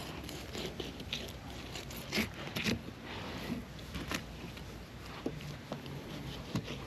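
A fillet knife cutting along a red snapper's backbone and through its rib bones, with irregular crunching clicks and crackles. The sharpest snaps come a little over two seconds in and again about four seconds in.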